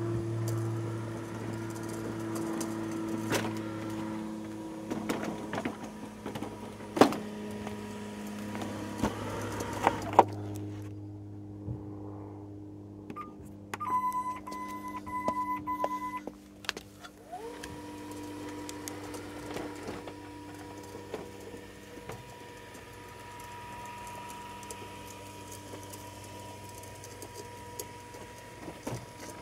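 WORX Landroid L1000 robot lawnmower's electric motors running with a steady hum and a few sharp clicks, stopping about ten seconds in. After a pause the mower beeps several times, then its motors spin up with a rising whine about seventeen seconds in and run on with a steady high hum.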